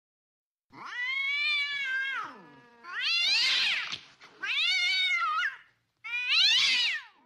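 Cat caterwauling with mating yowls: four long, drawn-out wails with short gaps between them, each sliding up and then down in pitch.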